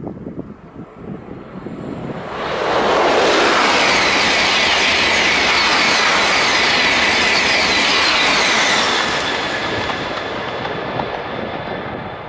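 A TGV high-speed train, two trainsets coupled, passing close by at speed. The rush of wheels and air swells about two seconds in, stays loud for some six seconds with a faint steady whistle on top, then fades as the train draws away.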